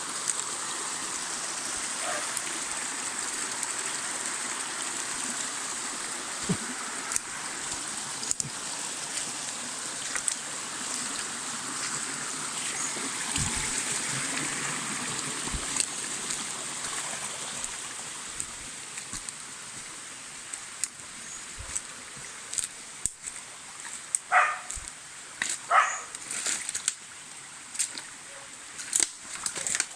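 Small spring-fed stream trickling and gurgling over rocks, a steady water sound that grows quieter about two-thirds of the way through. Near the end a few short knocks and rustles sound over it.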